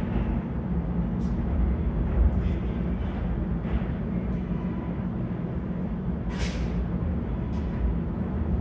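Steady low rumble in an underground subway station as a New York City L train sits far down the tunnel, with a short burst of hiss about six and a half seconds in and a few faint clicks.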